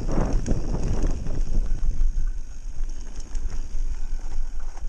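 Wind buffeting the camera's microphone as a mountain bike rolls fast down a gravel track, with tyre rumble and knocks and rattles from the bike over bumps. The rattling is busiest for the first two seconds, then eases.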